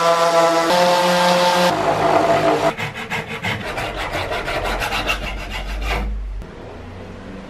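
A Bosch random orbital sander hums on a plywood piece, its pitch shifting, for the first two seconds or so. Then a hand rasp is worked quickly back and forth across a plywood edge in a rapid run of scraping strokes, several a second, which stops about six seconds in.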